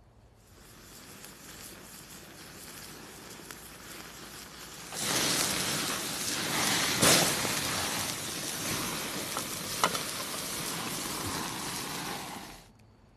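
Caul-fat-wrapped stuffed steak sizzling loudly on a grill grate over open flames, with a few sharp pops and crackles. A quieter hiss builds first, the sizzle jumps up suddenly about five seconds in, and it cuts off just before the end.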